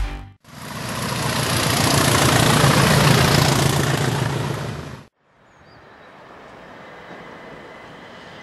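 A train passing at speed, a loud roar that swells and fades over about four seconds and then cuts off abruptly. After a moment of silence comes a quieter steady hum with a faint high whine as an electric multiple unit runs into the station.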